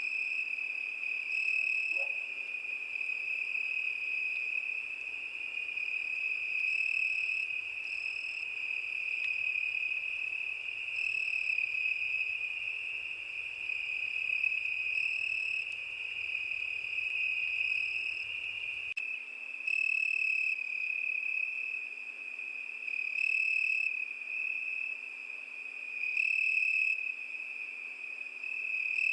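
Crickets singing: a steady, high trill that swells louder every couple of seconds.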